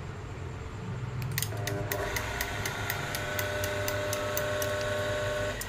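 Oil-bath sliding gate opener motor running, a steady whine with regular ticking about four times a second; it starts about a second in and cuts off abruptly shortly before the end.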